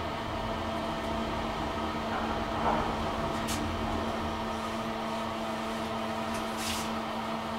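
Steady machine hum with several steady tones, and a couple of faint ticks.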